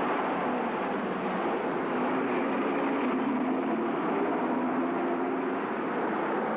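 Car engine and road noise as a sedan drives along the street, a steady, even sound with no sharp events.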